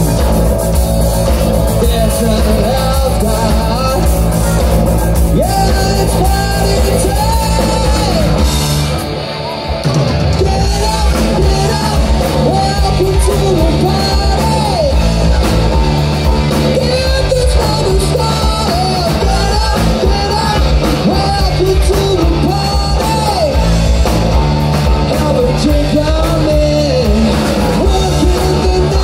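Live rock band playing: a male lead singer over electric guitars, bass guitar and drums. The low end drops out briefly about nine seconds in, then the full band comes back in.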